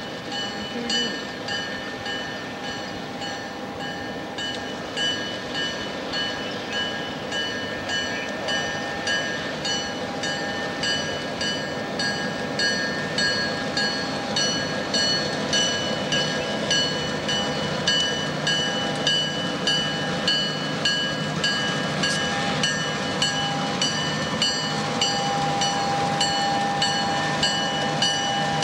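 Two EMD GP38-2 diesel locomotives with 16-cylinder 645 engines approaching and passing slowly, engines running. A ringing repeats about once a second and grows louder as they near.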